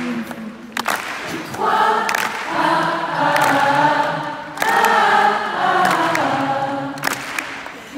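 Arena audience singing a song's melody together, thousands of voices blended like a choir, in two long phrases with a brief break in the middle.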